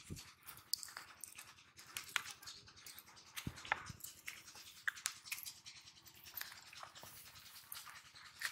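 Scattered soft clicks, taps and rustles from a freshly caught catfish being handled and unhooked on a plastic sheet on the bank, a few sharper ticks standing out here and there.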